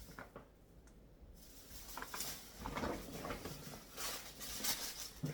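Rustling and handling of grocery items being unpacked, in bursts, with a short knock near the end as something is set down.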